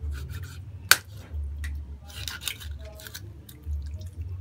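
Large kitchen knife cutting through raw chicken on a wooden table: soft squishing and scraping, with a sharp knock about a second in and a few lighter clicks later.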